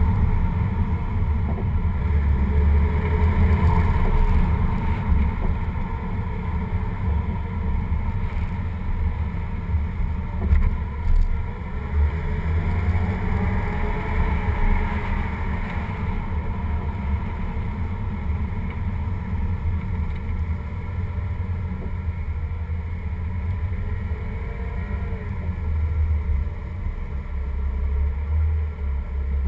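BMW driving slowly on asphalt, heard from a low bumper-mounted camera: a steady low rumble of tyre and wind noise on the microphone, with the engine's hum rising and falling faintly.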